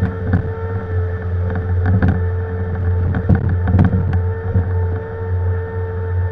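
Compact diesel excavation machine running steadily under load, with a steady whine over the engine hum and scattered knocks and scrapes as shale is dug and loaded.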